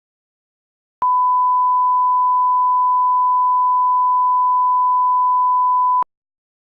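A single steady electronic sine-wave beep at one fixed pitch, starting about a second in and holding for about five seconds before stopping abruptly, with a faint click where it starts and stops.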